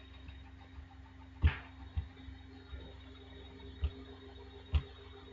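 A few sharp computer mouse clicks, spaced unevenly, over a faint steady electrical hum.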